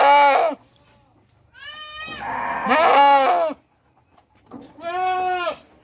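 A goat bleating loudly and repeatedly, in three wavering calls with short pauses between them, the middle one long and drawn out. The calls are a goat crying for its kid.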